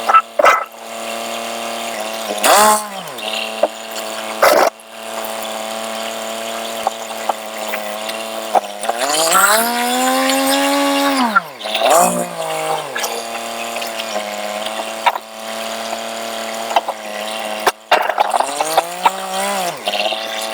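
John Deere 870 compact tractor's three-cylinder diesel engine running steadily, its pitch rising and falling once in the middle and sagging and recovering a few times as it is worked. A few sharp knocks come through over the engine.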